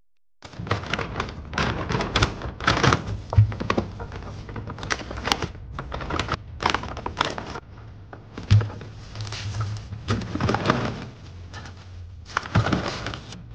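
Groceries being unpacked onto a kitchen counter, starting about half a second in: paper bags rustling and plastic fruit clamshells and produce clattering and knocking on the countertop.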